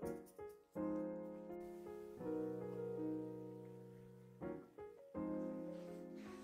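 Background piano music: single struck notes and chords that ring and fade, with a long held chord in the middle.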